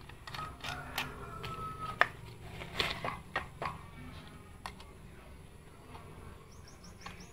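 Light metallic clicks and taps from a screwdriver, bolts and the shaft tube being fitted to the aluminium clutch housing of a brush cutter, sharpest about two seconds in and trailing off after about four seconds. Near the end comes a quick run of faint high chirps.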